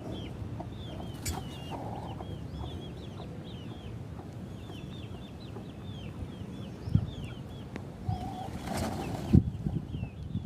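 Many small birds chirping in quick, continuous chatter over a low rumbling background, with a sharp knock about seven seconds in and another just past nine seconds.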